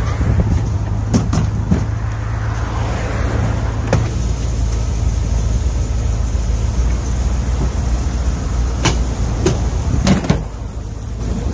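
Steady low hum of an idling vehicle engine, with several sharp knocks and bumps from a wooden desk being lifted and carried.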